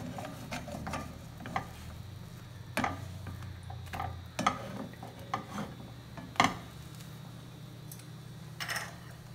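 Nylon slotted spatula knocking and scraping against a nonstick frying pan as slices of egg-dipped French toast are flipped and pressed, in scattered clicks about once a second, the sharpest a little past the middle. A steady low hum runs underneath.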